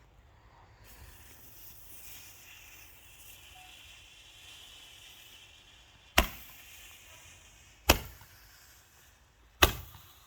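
A consumer firework's fuse hissing faintly for a few seconds, then three sharp bangs about a second and a half apart, each with a short fading tail.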